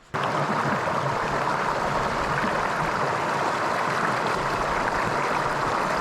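Steady rush of a trout stream's flowing water.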